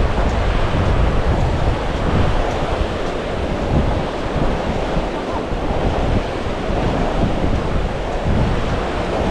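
Ocean surf washing onto the beach in a continuous hiss, with gusts of wind rumbling on the microphone.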